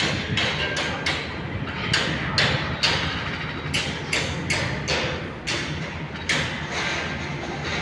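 Footsteps of a person walking, about two to three crisp steps a second, over a steady low hum.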